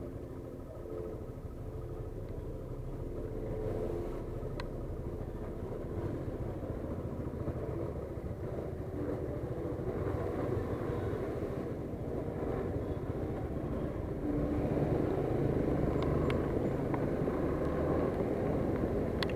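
A road vehicle travelling, with steady engine and road noise that grows louder about fifteen seconds in.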